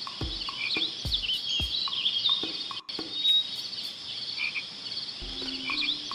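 Nature ambience of animal calls: short low calls that drop in pitch, repeating several times a second, over high chirps and trills, with a brief dropout about three seconds in.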